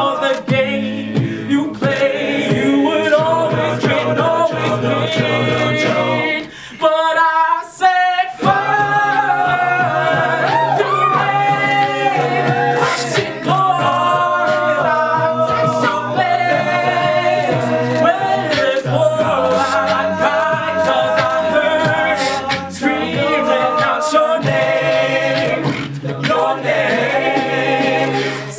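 Men's a cappella group singing: a male soloist over held backing harmonies, a low sung bass line and beatboxed vocal percussion. About seven seconds in the bass drops out for a moment and a higher vocal run is heard almost alone before the full group comes back in.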